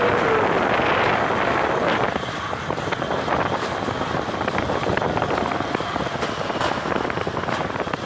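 Zip-line trolley running along a steel cable, with the rider's rush through the air blowing over the microphone: a steady rushing noise that eases a little after about two seconds, with scattered light clicks.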